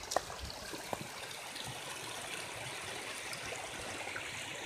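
Spring water running steadily from the spouts of a stone fountain and trickling through the wet ground below, a continuous splashing and trickling. A couple of light knocks in the first second.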